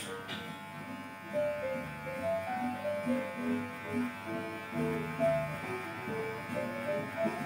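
Electric hair clipper buzzing steadily while cutting hair; it switches on right at the start. A melody of background music plays underneath.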